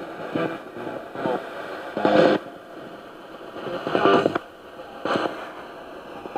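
Spirit box scanning through radio frequencies: a steady static hiss broken by about six brief snatches of broadcast voice and tone. The loudest come a little after two seconds in and about four seconds in.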